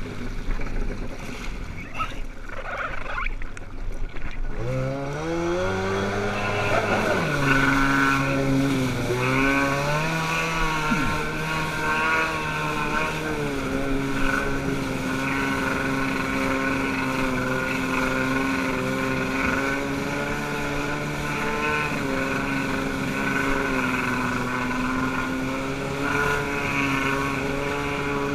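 Water rush and splashing, then about five seconds in a jet ski engine revs up and runs on steadily, its pitch rising and falling a little with the throttle.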